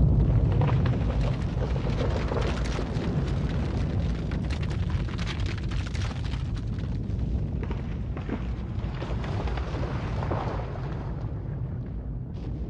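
A deep rumbling noise with scattered crackles and pops, slowly fading toward the end.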